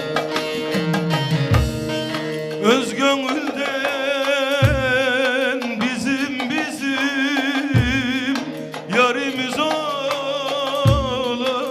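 Turkish folk music on an electric bağlama (electro-saz), plucked with a plectrum, joined about three seconds in by a man's voice singing long, heavily ornamented lines with a wide vibrato.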